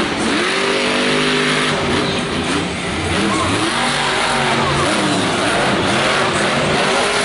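Son-Uva Digger monster truck's supercharged V8 revving hard as it drives, the revs climbing and falling several times, over the din of a stadium crowd.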